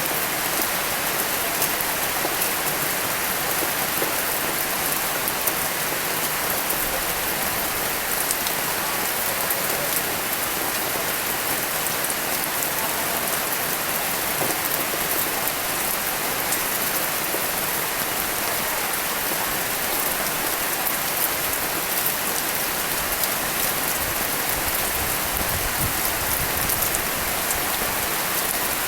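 Steady rain falling on a surface, an even hiss made up of many fine, close-spaced drop ticks.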